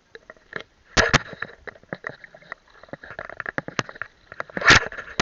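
Muffled knocks, clicks and water splashing picked up through a waterproof camera case on a kayak. The irregular knocks are loudest about a second in and again near the end.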